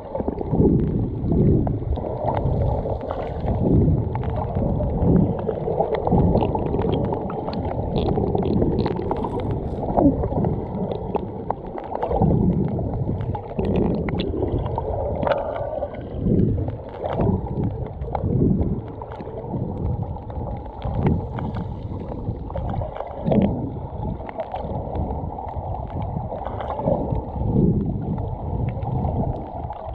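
Muffled seaside ambience: wind buffeting the microphone together with the wash of the sea, surging and easing irregularly.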